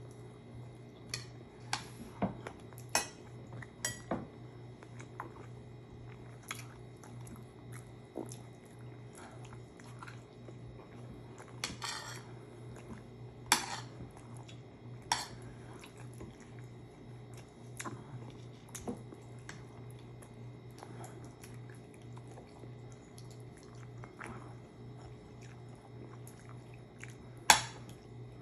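Close-up eating sounds: chewing and mouth noises, with scattered sharp clicks and clinks of hands and utensils on plates and bowls, the loudest near the end. A steady low hum runs underneath.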